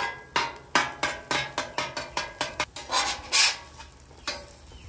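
Metal spatula clicking rapidly against the steel top of a Camp Chef Gridiron griddle, about five strikes a second, then a longer scrape as the spatula slides under a fried egg and lifts it.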